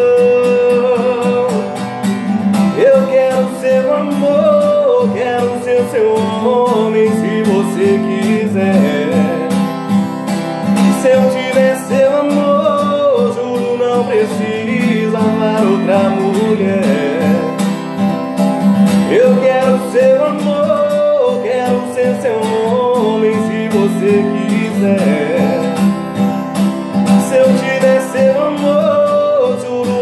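A man singing a sertanejo song in Portuguese while strumming an acoustic guitar in a steady rhythm.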